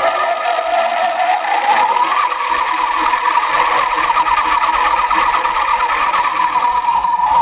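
Electric motor and gearbox of a 1/12-scale RC car whining as it drives. The pitch rises about two seconds in as the car speeds up, then holds steady.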